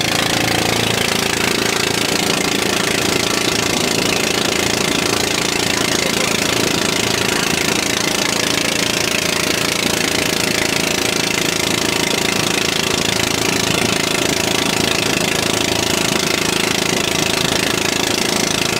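Motorized bangka outrigger boat's engine running steadily at cruising speed, with a rapid knocking beat, over the rush of water and wind.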